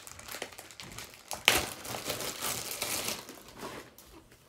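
Clear plastic wrap crinkling and crackling as it is pulled off a plastic slime container, with one sharp snap about a second and a half in; the crinkling dies away near the end.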